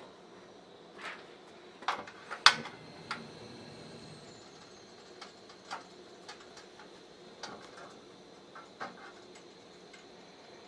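Scattered light clicks and knocks of things being handled, a cluster in the first three seconds with the sharpest about two and a half seconds in, then a few sparser ones.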